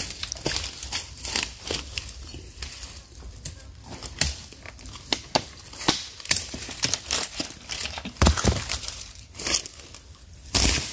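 Irregular crackling and rustling close to the microphone, with a few louder knocks: a freshly cut jungle vine and the camera being handled while water drips from the vine.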